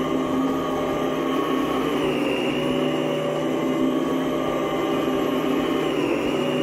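Sebo Duo carpet machine running as it is pushed over the carpet, its twin counter-rotating brushes agitating a pre-sprayed cleaning agent into the fibres. A steady motor hum with a high whine that dips slightly in pitch a couple of times.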